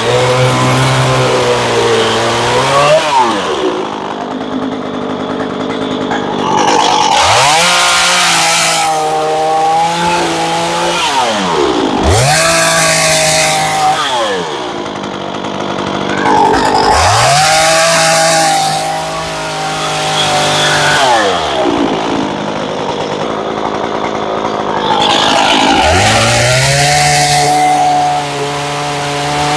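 Two-stroke gas chainsaw carving into a block of wood. It revs up and cuts for a few seconds at a time, then drops back to idle between cuts, about five times over.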